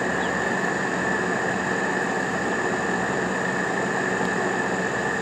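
A steady, unchanging drone with a constant high whine running through it.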